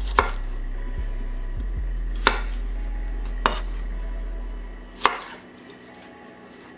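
Chef's knife cutting peeled cucumber on an end-grain wooden cutting board: four separate sharp knocks of the blade meeting the board, a second or two apart. A low steady hum underneath fades out about four and a half seconds in.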